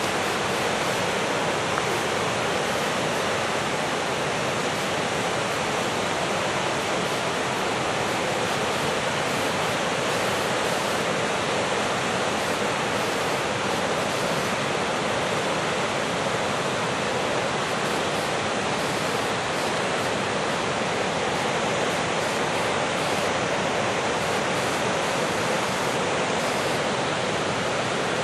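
River rapids and falls rushing: a steady, unbroken noise of fast whitewater.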